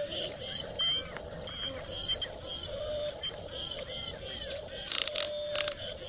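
Toy RC excavator's small electric motor whirring in short spells as the arm and bucket move, with birds chirping throughout. A quick run of clicks comes about five seconds in.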